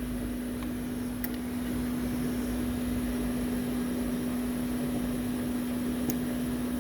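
Steady machine hum with one constant low tone and a faint airy hiss, with a couple of faint ticks.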